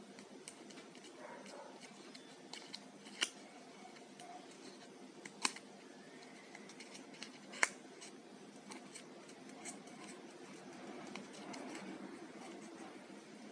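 Paper origami modules being folded and creased by hand: faint rustling with scattered sharp crackles of the paper, the three loudest about 3, 5½ and 7½ seconds in.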